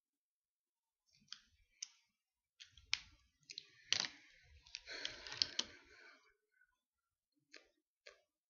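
Scattered sharp clicks and knocks of small objects being handled on a desk, with a rustling, scraping stretch in the middle and the loudest knocks a little after halfway.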